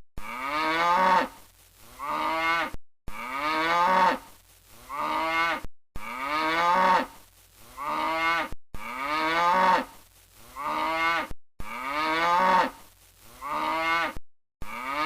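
Cow mooing: the same call repeats about every three seconds, five times, with abrupt short silences between the repeats.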